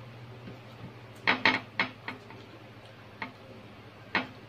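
Several sharp clicks and taps from hands handling a peeled boiled unripe banana over the plates, four close together between about one and two seconds in and two more later. A low steady hum runs underneath.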